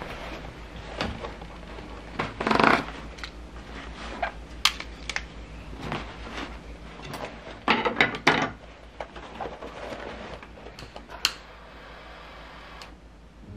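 Tableware and camping tools handled on a wooden slatted table: scattered clicks and knocks of metal utensils and a knife being set down, with rustling of a canvas tool roll being opened twice. A sharp click near the end as a lighter is struck to light a candle.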